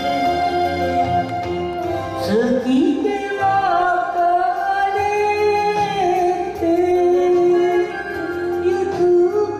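A woman singing into a microphone over instrumental backing music. The backing plays alone at first; about two seconds in her voice comes in with a rising note and carries on in long held notes.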